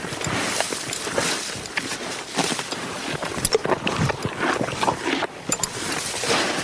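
Horse grazing, tearing and chewing grass: an irregular run of crunching and rustling munches.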